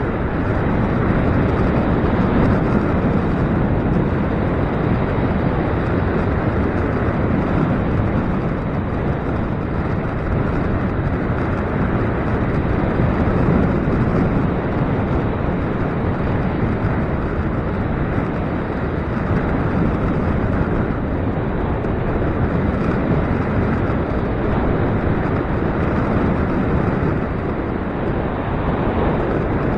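Gusty wind blowing across the microphone: a steady rushing noise that swells and eases slightly.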